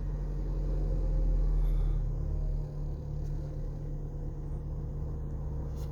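1996 Honda Civic's four-cylinder engine running just after a start that needed a light push on the gas: held slightly up on throttle for about two and a half seconds, then dropping back to a steady idle.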